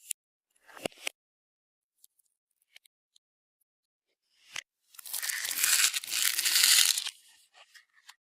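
Slime-making handling sounds: a few small clicks and taps, then about two seconds of loud crackly crunching that trails off into light ticks.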